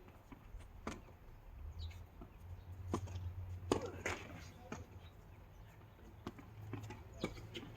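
Tennis ball knocks at irregular intervals, from racket strikes and bounces on the court, with a cluster a little past the middle, over a low steady rumble.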